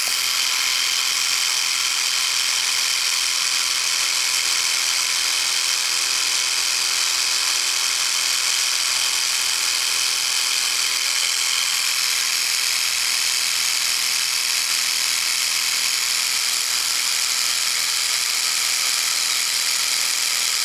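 A steady, even hiss with a faint high whine, unbroken and unchanging in level, with no shot or impact.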